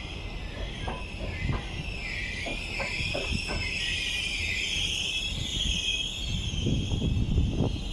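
Double-decker passenger coaches rolling slowly past on a curve, their wheels squealing against the rails with a wavering high-pitched squeal over a low rumble. A few clicks of wheels over rail joints come in the first half.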